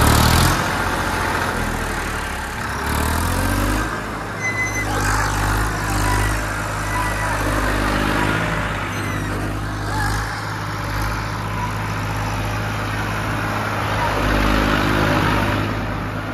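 Tractor engine running steadily, revved up and eased off again several times.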